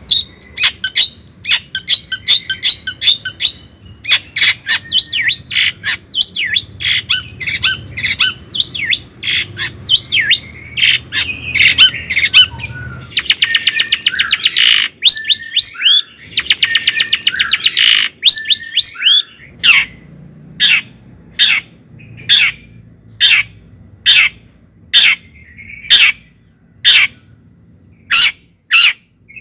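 A bird calling loudly: busy, rapid chirps and squawks with quick gliding notes, then, from about two-thirds of the way in, single sharp calls at about one a second.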